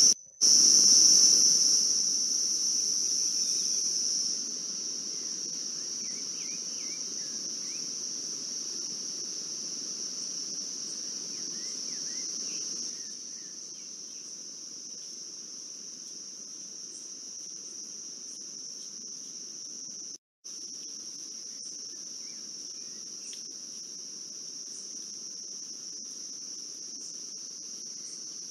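Steady, high-pitched insect chorus, with a few faint short chirps over it. It drops out for an instant twice, just after the start and about two-thirds of the way through, and steps down in loudness about four seconds in and again around thirteen seconds.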